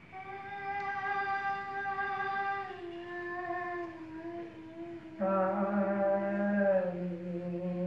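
A voice singing long, steady held notes in Indian classical style, stepping down in pitch about three seconds in and dropping to a much lower note about five seconds in.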